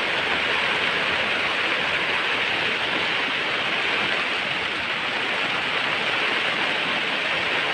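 Steady, even rushing noise with no breaks, brightest in the upper range, that cuts off suddenly at the end.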